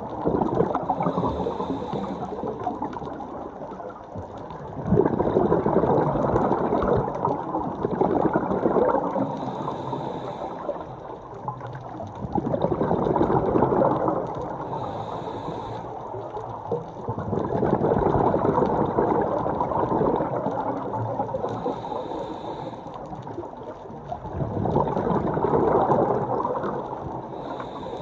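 A scuba diver breathing through a regulator underwater. Each cycle is a short, high hissing inhale followed by a longer, louder rush of exhaled bubbles, repeating about every five seconds.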